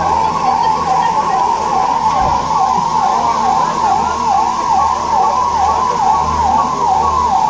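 Electronic siren warbling, its pitch rising and falling quickly and evenly, about three times a second, without a break.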